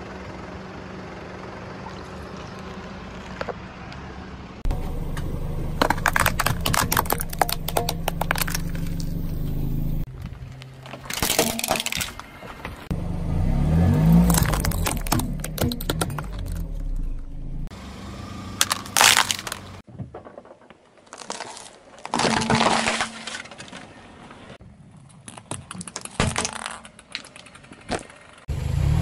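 A car tyre rolls slowly over small plastic bottles on asphalt, crushing them one after another. Each one goes with sharp cracks, pops and crunches of plastic giving way, over a steady low engine hum, and the sound cuts abruptly between objects several times.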